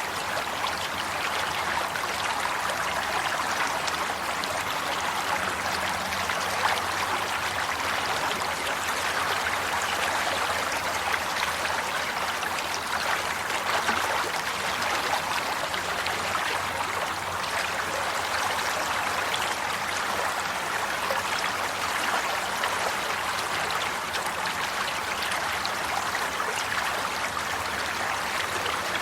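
Water flowing and trickling steadily, like a small stream running over stones, with a continuous splashing babble.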